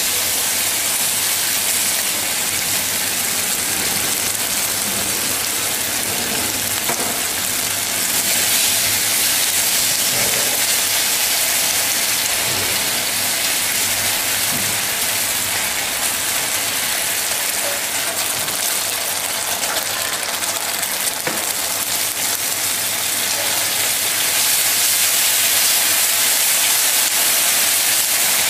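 Sliced pork sizzling steadily in hot oil in a wok while a spatula stirs it, with a few faint scrapes and taps. It is frying down with oyster sauce, soy sauce and sugar until the pan goes dry and sticky.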